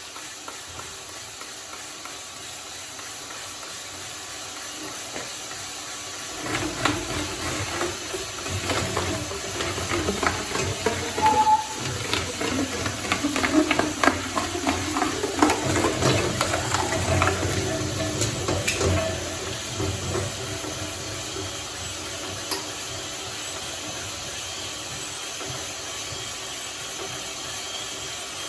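Shredder with slime going through it. There is an even hiss at first; about six seconds in, dense crunching and crackling starts over a low rumble and eases off after about twenty seconds, leaving a steady hiss.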